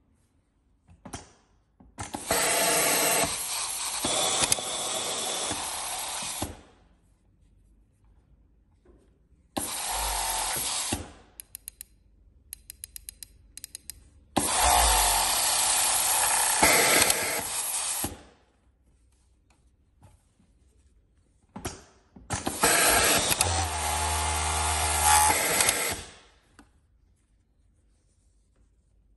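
Juki MO-6700DA overlock sewing machine running at high speed in four separate runs of a few seconds each, with a quick series of short clicks between the second and third runs.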